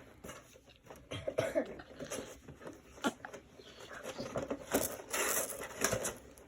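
Cardboard and plastic packaging of a boxed action figure being handled and opened: scattered clicks, knocks and rustling, busiest about two thirds of the way through.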